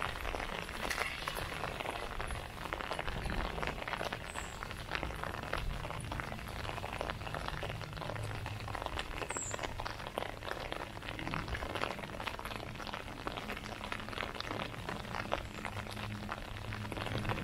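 Light rain falling, small drops tapping densely on an umbrella held overhead, with the walker's footsteps on the path.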